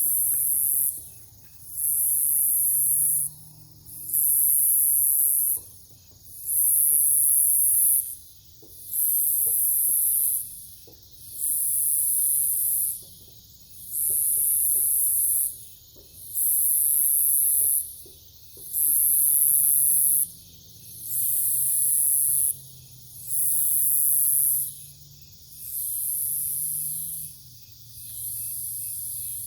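Night insect chorus, which the uploader calls cicadas: a loud, high-pitched buzzing that pulses on and off in a steady rhythm, about one pulse every two seconds, each lasting about a second and a half. Beneath it runs a faint, even chirping. The pulses grow a little weaker near the end.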